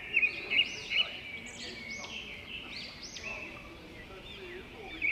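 Small birds chirping: a quick run of loud, sharp chirps in the first second, then a steady string of softer chirps.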